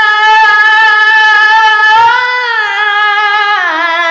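A male qari reciting the Quran in melodic tajweed style, holding one long drawn-out note on a single breath. The pitch lifts slightly about two seconds in and glides down near the end.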